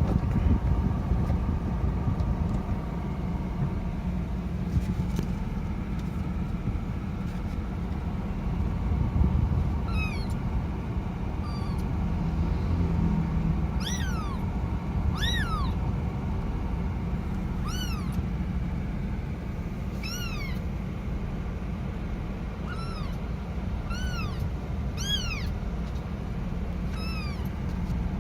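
Kitten meowing loudly and repeatedly, calling for its mother: short high calls that rise then fall in pitch, starting about ten seconds in and coming every second or two. A steady low rumble runs underneath.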